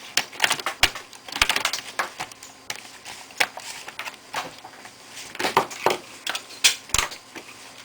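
Plastic laptop case cover being fitted and pressed into place: irregular clicks, taps and snaps in quick clusters, the sharpest near the end.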